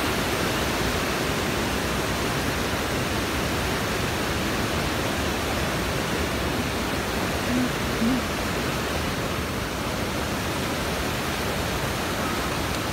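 Water pouring over a low concrete dam and churning below it: a steady, even rushing.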